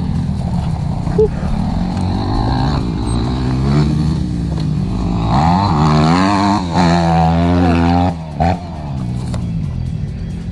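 Motocross bike engine running, its revs climbing and falling several times, loudest in the middle and briefly dropping away about eight seconds in.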